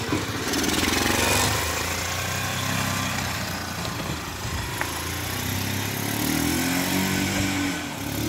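150cc quad ATV engine pulling away in first gear and running on as the quad rides off, revving up again near the end.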